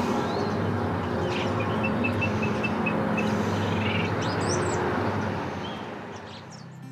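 Birds chirping, including a quick run of short repeated notes, over a steady low rumble of outdoor ambience; it all fades out near the end.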